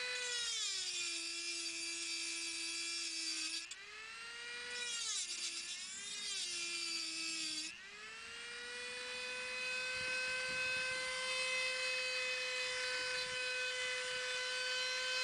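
Handheld rotary tool with a cut-off disc grinding the sharpener's steel angle bracket. The motor whine drops in pitch twice as the disc bites into the metal, with a harsh grinding hiss that cuts off suddenly each time the disc is lifted. From about eight seconds in it runs up to a steady higher whine with lighter grinding.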